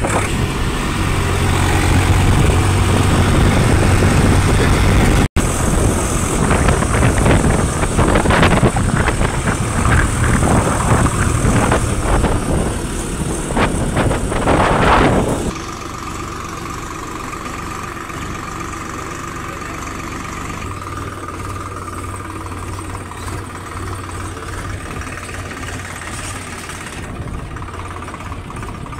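Tractor engine running while riding in the trailer it pulls, under loud rushing noise from the moving ride. About halfway through the sound cuts to a quieter, steady engine drone.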